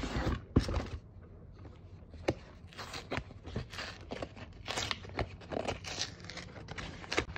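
Paperboard protein-powder box being handled and its sealed flap torn open: irregular crackles, tearing and scraping of cardboard.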